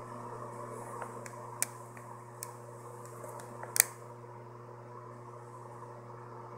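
A steady mechanical hum with a handful of sharp clicks over it, the loudest a little before four seconds in.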